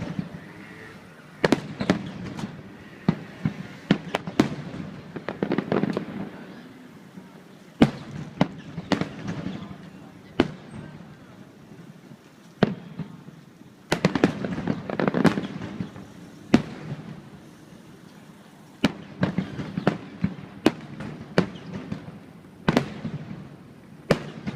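Fireworks display: aerial shells bursting in many sharp bangs at irregular intervals, some coming in dense rapid volleys.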